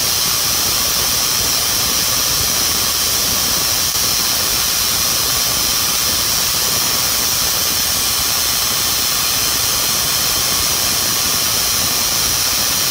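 High-voltage open-air spark gap of about 1.5 inches, fed by a 15 kV, 30 mA Tesla-style circuit, arcing continuously. It makes a loud, steady hissing noise, strongest in the high treble.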